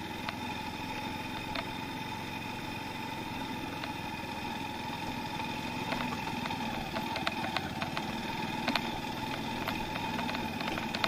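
Motorcycle engine running steadily during a ride, with scattered light ticks in the second half.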